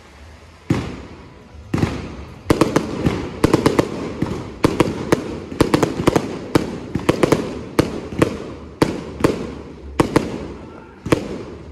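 Fireworks display: shells launching and bursting overhead in a fast, irregular barrage of sharp bangs. The first bang comes under a second in, and from about two seconds in the bangs come several a second.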